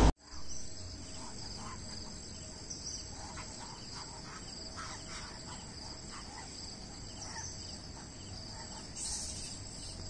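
Steady high-pitched chorus of insects singing in roadside forest, with a few faint short sounds in the middle of it.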